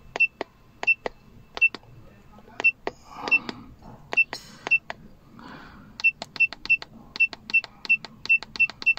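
Launch CReader 3008 OBD-II scanner beeping at each button press as a trouble code is keyed in digit by digit: a string of short, high, single-pitch beeps, each with a click. The presses are spaced out at first and come in quicker runs from about six seconds in.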